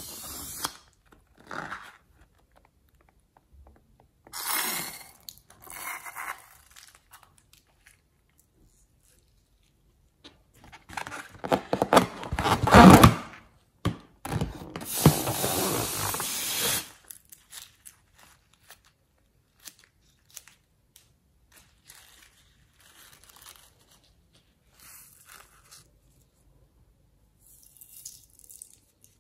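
Close handling of slime-filled latex balloons over a glass bowl: rubber rubbed and snipped with scissors and slime squeezed out into the bowl, in separate bursts of rustling and tearing-like noise with quiet gaps between, the loudest a little under halfway through.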